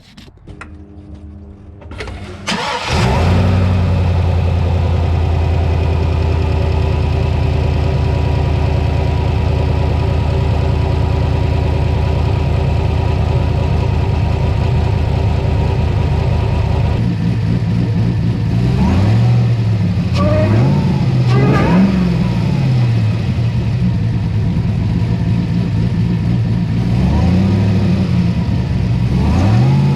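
LSA-supercharged V8 in a 2003 GMC Sierra pickup, now fitted with a smaller supercharger pulley, starting about two and a half seconds in and idling steadily. In the second half it is revved a few times, the pitch rising and falling with each blip.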